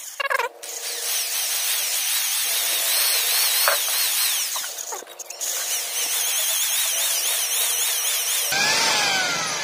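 Electric hand drill spinning an engine valve against its seat with grinding compound, lapping the valve in a motorcycle cylinder head. The drill's whine wavers up and down and stops briefly about five seconds in before starting again. Near the end it winds down with a falling pitch.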